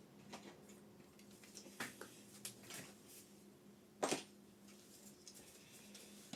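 Faint clicks and taps of small parts and tools being handled, with one sharper click about four seconds in, over a steady low hum.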